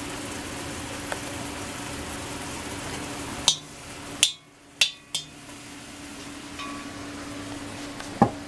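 Broccoli simmering in stock in a hot wok, a steady hiss with a low hum under it. Midway through, a utensil knocks and clinks against the wok a few times as the broccoli is stirred, with one more knock near the end.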